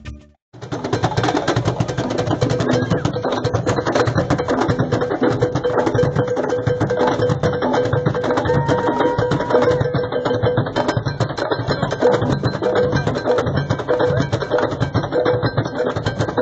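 Afro-Peruvian music led by cajon: a fast, dense percussion groove with sustained tones underneath. It starts about half a second in, after a brief silence.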